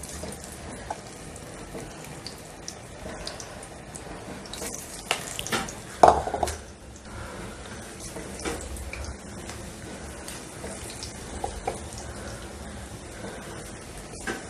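Onion pakoras deep-frying in medium-hot oil: a steady sizzle with scattered crackling pops. A louder burst of sizzling comes about six seconds in as more batter goes into the oil.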